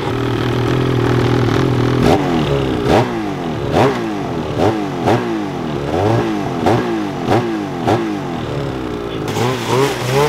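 2022 Ski-Doo Freeride 850 E-TEC two-stroke twin fitted with a GGB Mountain Can exhaust, running steadily at idle and then blipped about ten times in quick succession, each rev a sharp rise and fall in pitch.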